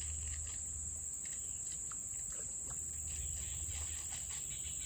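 A steady, high-pitched chorus of insects, with a low, steady rumble underneath.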